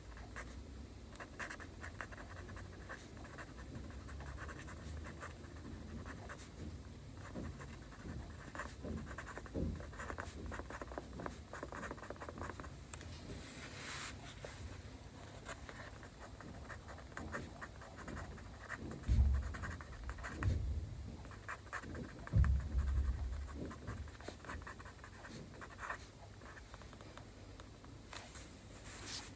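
A pen handwriting Chinese characters on a sheet of paper: a steady run of short scratching strokes. Two low thumps stand out about two-thirds of the way through.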